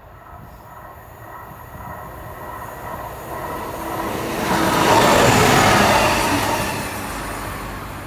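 A railway track tamper passes on the rails. Its rumble and wheel noise build up, are loudest about five seconds in, then fade away as it recedes.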